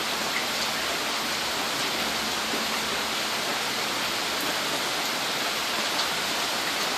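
Steady hiss of heavy rain from a thunderstorm.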